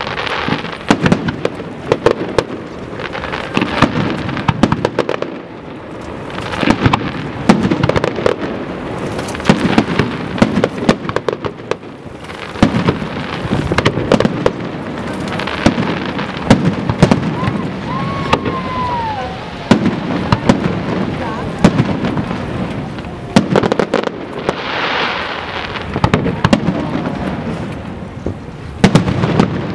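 Fireworks display: repeated loud bangs of aerial shells bursting, in clusters, with crackling between them. A short whistle rises and falls about two-thirds of the way through.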